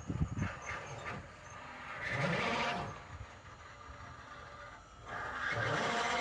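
A road vehicle going by about two seconds in, rising and fading. Another vehicle sound builds about five seconds in, with low gusts of wind on the microphone at the start.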